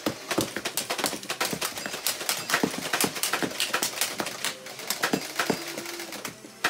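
Rapid, irregular clatter of Nerf blasters firing and foam darts striking the plastic targets of a LEGO dueling tree, with the hinged LEGO target paddles clacking as they swing over to the other side; several sharp knocks a second.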